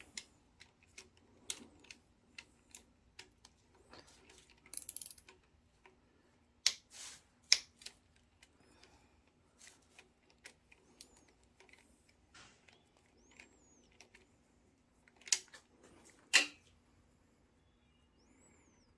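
Irregular metallic clicks and clinks of hand tools working the connecting rod cap nuts on a Ford 5.0 V8 during teardown. The two loudest clinks come about seven seconds in and again about sixteen seconds in.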